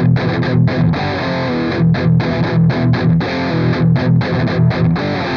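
Electric guitar through a high-gain Mesa Boogie Dual Rectifier amp simulation with a Tube Screamer boost, playing a choppy distorted riff of short chords cut off by quick gaps. The Stratocaster's pickup selector is in position 2, the bridge and middle pickups together.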